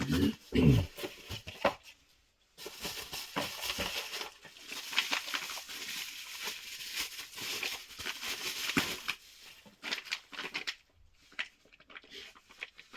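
A package's wrapping being opened and crinkled by hand: a few low knocks in the first second or two, then several seconds of dense crackling and rustling that thins into scattered crinkles near the end.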